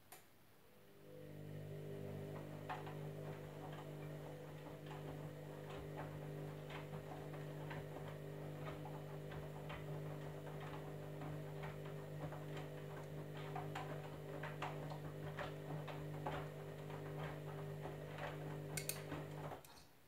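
Candy Grand'O Vita washing machine tumbling a wash load: the drum motor starts after a click, hums steadily for about eighteen seconds with irregular clicks as the wet laundry turns in the drum, then stops abruptly near the end.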